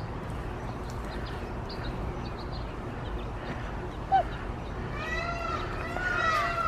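Peahen calling: after one short note about four seconds in, a run of loud, repeated nasal, arching calls begins about five seconds in, with faint small-bird chirps underneath.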